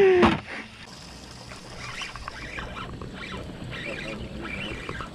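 Water lapping against the hull of a skiff: a low steady wash with light scattered splashes.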